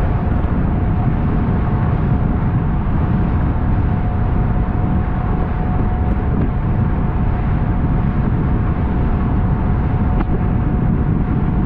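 Buster Magnum aluminium motorboat running under way through choppy waves, its outboard engine driving steadily with a thin constant whine. Heavy wind rumbles on the microphone throughout.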